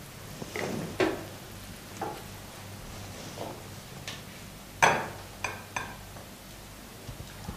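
A metal cooking pot being handled: a few light knocks and clinks, the loudest a sharp knock about five seconds in, as the pot is taken off the gas stove and tilted over a serving bowl.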